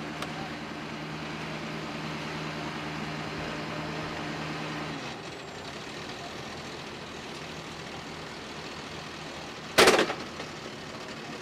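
Tow truck's engine running with a steady drone, which stops about halfway through. Near the end comes a short, loud burst of noise.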